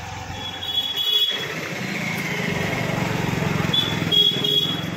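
Motorcycle engines running close by in street traffic, a steady low hum, with two short high-pitched tones, one near the start and one near the end.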